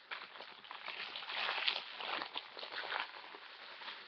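Wrapping paper rustling and crinkling as a gift is handled and unwrapped, an irregular run of small crackles.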